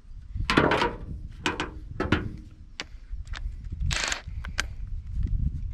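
Scattered knocks and clatters of hand tools being handled and set down on the truck's steel fender while the engine's head bolts are being worked loose, over a steady low rumble.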